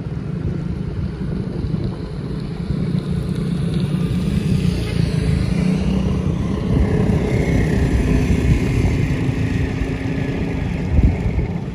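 Road traffic: motor vehicle engines running and passing, over a steady low noise.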